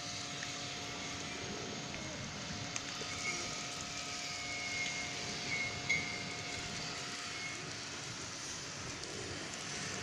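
Pebble-beach ambience: a steady wash of sea surf with a steady engine hum in the background, and scattered light clicks of feral pigeons pecking and stepping among the pebbles.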